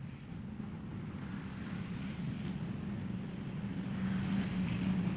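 A motor vehicle engine running steadily with a low hum that slowly grows louder, with wind noise on the microphone.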